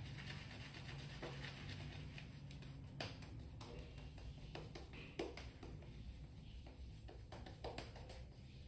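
Faint, scattered small taps and rustles of shaving gear being handled, over a steady low hum.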